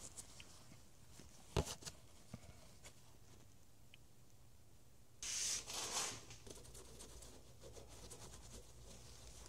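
Cloth rag rubbing and scraping around the splined end of a steering column shaft for about a second near the middle, after a single sharp click about a second and a half in.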